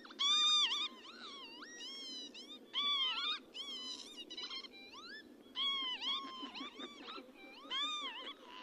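Northern lapwing calling: a series of wheezy, slurred 'pee-wit' calls, each rising then falling in pitch. Four calls are loud, with fainter calls between them, over a steady low background hiss.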